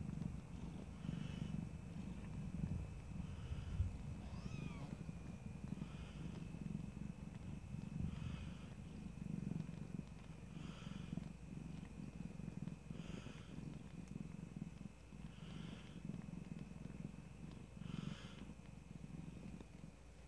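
Mother cat purring steadily while nursing her newborn kittens, with a regular swell about every two seconds.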